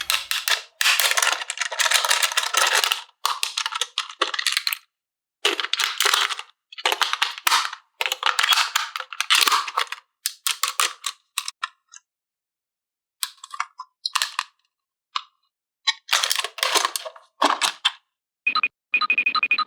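Repeated bursts of rustling handling noise, typical of toy pieces and packaging being handled, broken up by sudden silent cuts. Near the end comes a short ringing chime.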